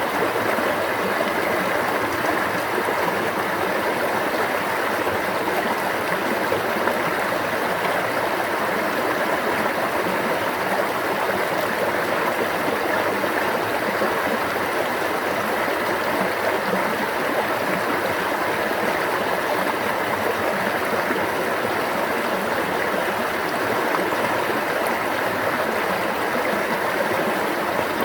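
Water running in a stream: a steady, unbroken babbling rush.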